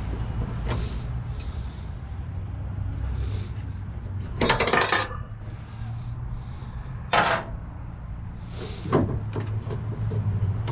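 Metal knocks and rattles as a gas hot water unit is pried apart by hand, with a louder clatter about halfway through, a shorter one a couple of seconds later and a sharp knock after that, over a steady low rumble.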